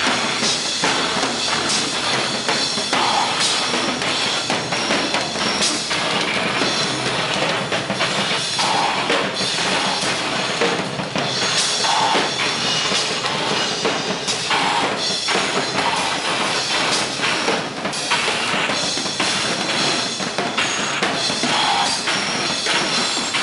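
Live noise music: a loud, dense wall of harsh noise with rapid, irregular drum-like hits throughout.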